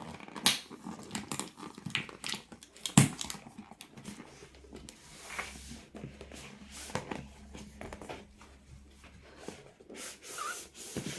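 Cardboard advent calendar box being unwrapped and opened by hand: irregular tearing and crinkling of packaging with light knocks and handling taps, one louder knock about three seconds in.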